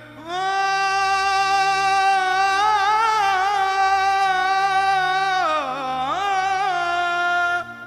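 Background music: one long held melodic note that wavers in pitch through the middle and bends down and back up near the end, over a low drone, then cuts off suddenly.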